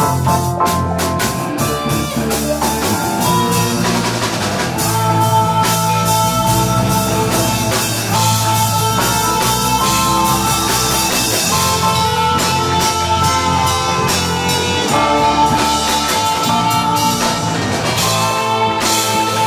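Rock-style jam music with drum kit and guitar, playing continuously.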